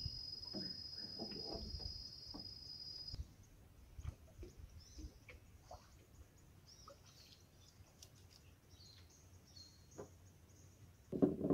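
Quiet natural ambience. A steady high, insect-like buzz cuts off about three seconds in, followed by scattered bird chirps, a few small knocks and a brief louder sound near the end.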